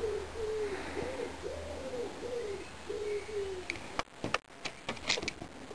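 A pigeon cooing, a run of short coos that each rise and fall, stopping about three and a half seconds in. Then a few sharp clicks and knocks as the bare glass LCD panel is handled.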